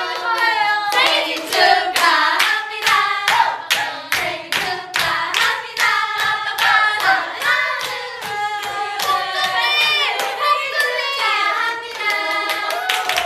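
A group of young women singing together in unison while clapping along, with steady claps about twice a second.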